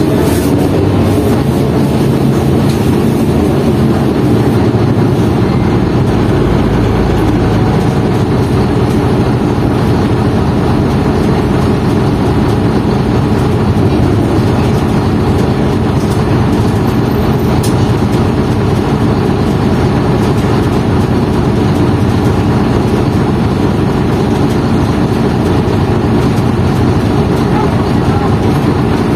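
An old Ikarus bus's diesel engine running, heard from inside the passenger cabin as a steady low drone.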